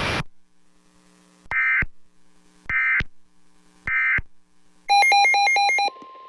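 Emergency Alert System end-of-message: three short bursts of SAME digital data tones about a second apart. These are followed by a one-second rapid two-tone warbling beep. Near the end a steady single tone of about 1 kHz begins over static, the NOAA Weather Radio alert tone that comes before the next warning.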